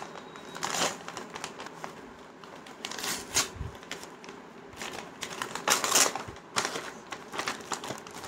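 Courier shipping packet crinkling and rustling as it is torn open and handled. It comes in irregular bursts, the louder ones about 1, 3 and 6 seconds in.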